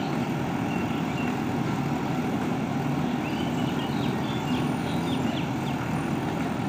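JCB 3DX backhoe loader's four-cylinder diesel engine running steadily under load as the backhoe arm and bucket dig into soil.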